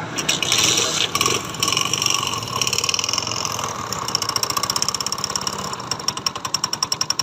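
Unique 70 motorcycle's 70cc single-cylinder four-stroke engine running, revved briefly at first and then idling with a rapid, even ticking knock. The mechanic traces this tak-tak to loose pins on the magnet (flywheel rotor) rather than to the piston or valves.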